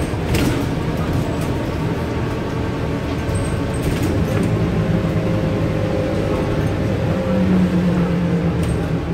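Scania N230UD double-decker bus's five-cylinder diesel engine and drivetrain running under way, heard from inside the upper deck, its note drifting and swelling briefly near the end. A few short clicks and rattles from the bus body come through.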